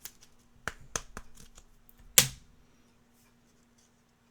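Trading cards being handled: several light clicks and taps, the loudest a sharp knock about two seconds in.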